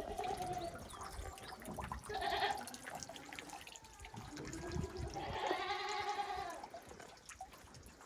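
Goats bleating: a short bleat about two seconds in and a long, wavering bleat about five seconds in, with small knocks and rustles between them.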